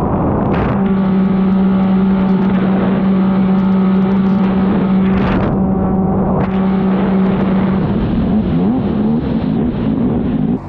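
Stand-up jet ski's Yamaha TR-1 1050 three-cylinder four-stroke engine running flat out, a steady high engine note over rushing water and spray. Near the end the engine pitch wavers and dips up and down.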